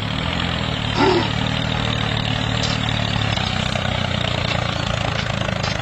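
Tractor engine running steadily at a constant low pitch as the tractor pulls a loaded grain trolley away.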